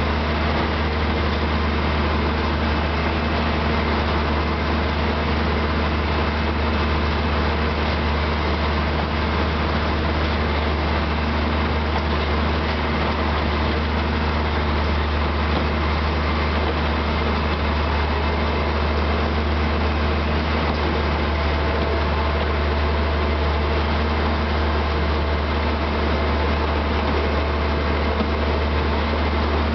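Diesel locomotive of a metre-gauge narrow-gauge railway running steadily as it hauls the train, with a constant low engine drone and even running noise.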